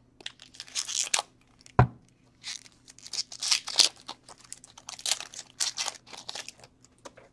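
A hockey card pack's wrapper being torn open and crinkled in irregular crackling bursts, with one sharp knock about two seconds in.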